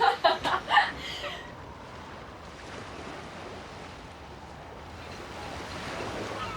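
Voices laughing in the first second or so, then a steady rush of wind and waves that swells slightly near the end.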